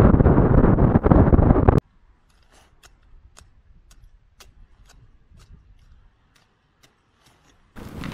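Wind buffeting the microphone in a snowstorm, cut off abruptly about two seconds in. Then a dozen or so sharp, separate ticks as a blade jabs and chips at the frozen mouth of a plastic water bottle. Wind noise returns just at the end.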